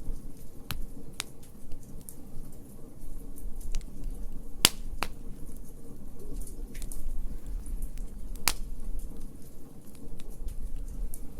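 Wood fire crackling: scattered sharp pops and snaps, the loudest a little under five seconds in, over a low steady rumble.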